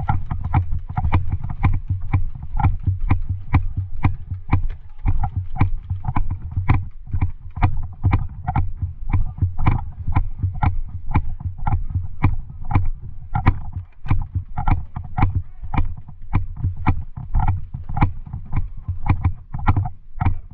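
Steady rhythmic thuds, about two to three a second, over a low rumble on the microphone: footsteps of a player walking, jostling the camera.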